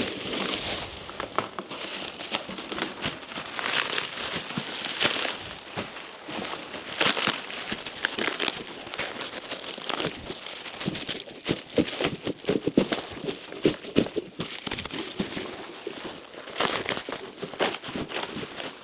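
Packaging being pulled off a set of roof-rack crossbars: continuous irregular crinkling and crackling, with some tearing.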